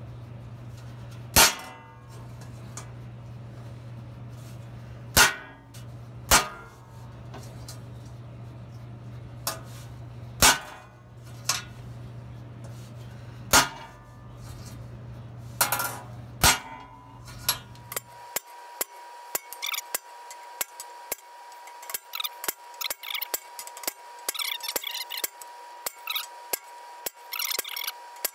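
Hammer striking the steel teeth of a 32-inch buzz saw blade, setting every other tooth. About eight sharp, widely spaced blows with a brief metallic ring, then about eighteen seconds in a quick run of lighter, rapid taps.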